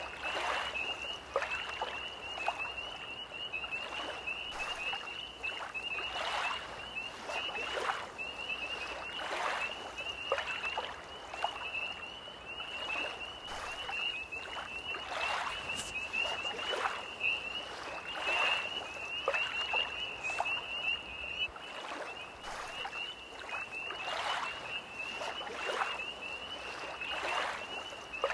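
Small lake waves lapping at the shore about once a second, under a continuous high trill of tree frogs.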